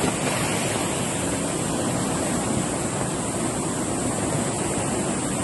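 Rushing floodwater of a swollen, muddy river, a steady even rush of fast-moving water.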